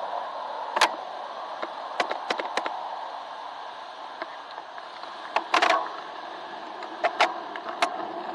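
Muffled street and traffic hum heard through an action camera's waterproof housing on a bicycle's handlebars, with about nine sharp clicks and knocks scattered through it, some in quick pairs.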